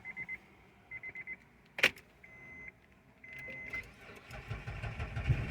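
Short electronic beeps and a click, then a 2006 Honda Pilot's V6 cranking and catching in the last second or so, starting now that the new key has been registered to the immobilizer.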